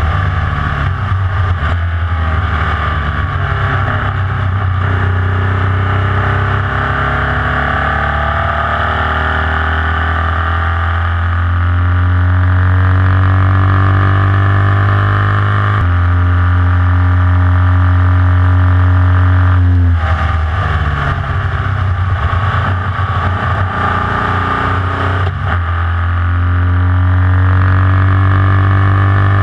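Onboard sound of a Formula Vee's air-cooled Volkswagen flat-four engine running hard on track, its note climbing slowly as revs build. The note changes suddenly about halfway through, breaks up roughly about twenty seconds in, then climbs again near the end.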